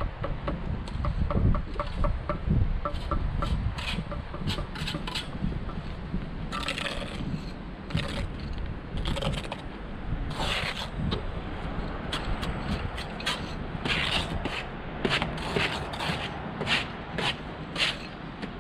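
Steel trowel scraping and knocking on mortar and stone blocks while a stone parapet wall is laid: a run of short, irregular scrapes and taps, with wind rumbling on the microphone.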